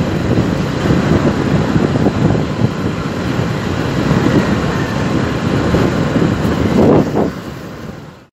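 Wind rushing over a phone's microphone on a moving motorcycle, with the bike's engine and road noise rumbling underneath; it fades out near the end.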